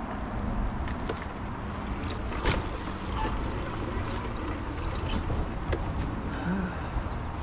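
Trail motorbike engine running at low speed while the bike picks its way over rough ground, with scattered knocks and one sharper knock about two and a half seconds in.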